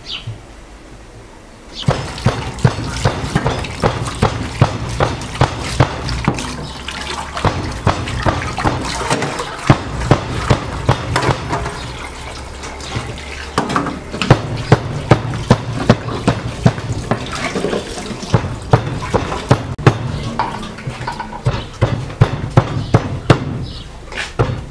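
Tap water running into a stainless-steel sink while tomatoes and onions are washed, with frequent knocks and clatter against the steel; it starts about two seconds in. Near the end a knife starts chopping on a wooden board.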